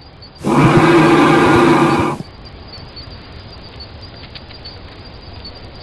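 Male great Indian bustard giving its deep booming courtship display call: one loud, steady call about two seconds long, starting about half a second in.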